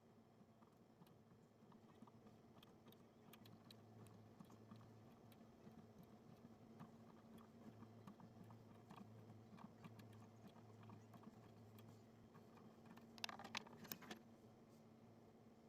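Near silence: faint room tone with a steady low hum and scattered light clicks, with a brief cluster of sharper clicks near the end.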